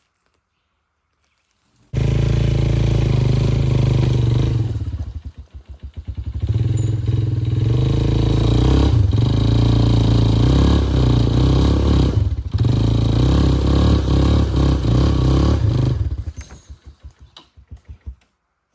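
Two-stroke chainsaw running hard, starting suddenly about two seconds in. It drops briefly to idle and is throttled back up. Near the end the throttle is released and the engine slows in separate firing pulses and stops.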